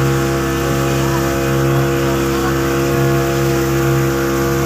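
Motorboat engine running at a steady cruising speed, an even drone that holds its pitch, over the rushing hiss of the churning wake.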